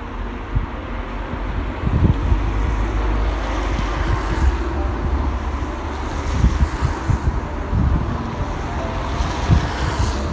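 Wind buffeting the microphone: a gusty low rumble under a steady rushing hiss.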